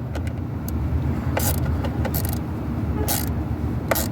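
Mini ratchet clicking in four short strokes, about a second apart, as it tightens the hose clamp on the intake's rubber coupler at the throttle body, over a steady low rumble.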